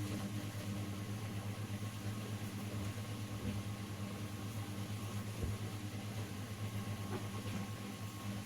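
Steady low electrical hum of a small bench machine or fan running, with a faint high tone over it and a few faint light clicks.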